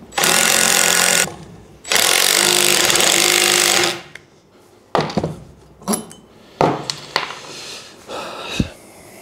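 Impact wrench run in two bursts, about one second and then two seconds long, driving the nut on a bolt drawn through a rubber suspension bushing to pull the bushing's metal centre sleeve out. A few sharp metal knocks follow.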